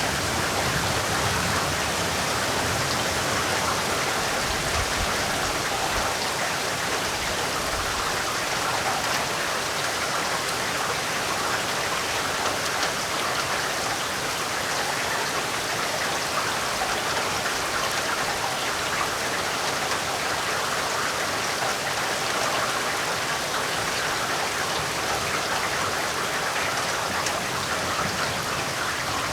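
Heavy rain falling steadily: a dense, even hiss of drops. A low rumble dies away over the first several seconds.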